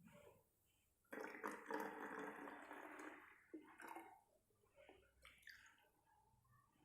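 Water being poured from a tumbler into a spray bottle for about two seconds, starting about a second in, then a few faint drips and knocks.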